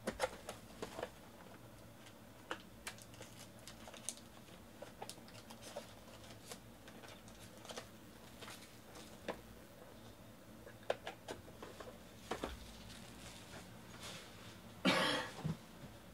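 Quiet handling of a trading-card box and foil card packs: scattered light taps, clicks and crinkles, with one brief louder rasp near the end.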